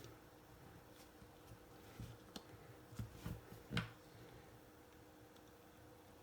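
Near silence, with a few faint clicks and taps from small parts being handled while a circuit board is soldered, the clearest near the middle, over a faint steady hum.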